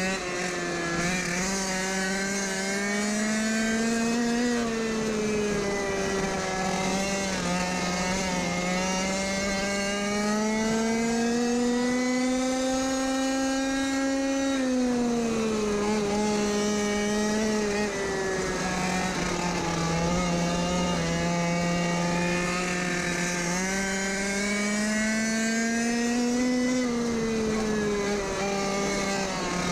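GoQuad mini quad's small petrol engine running hard under racing throttle, heard from the rider's seat. Its pitch climbs and drops again and again with speed, highest about four, thirteen and twenty-six seconds in.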